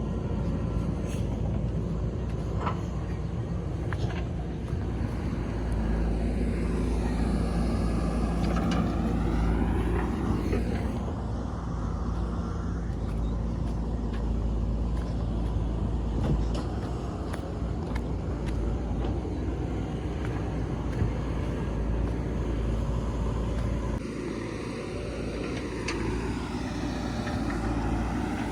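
JCB 3DX Super backhoe loader's diesel engine running while it digs, its pitch rising and falling twice as the hydraulics take load, with a few sharp knocks.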